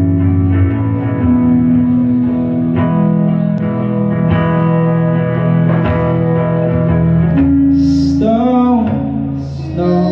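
Live music: electric guitar with long held chords that change every second or two, and a voice singing a short wavering phrase near the end.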